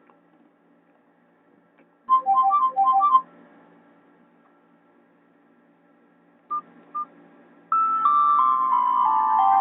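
Nokia E75 ringtones played through a Nokia 216 phone's small speaker. A short phrase of quick electronic notes plays about two seconds in, then two short beeps follow. Near the end a new tone starts with a run of notes stepping down in pitch.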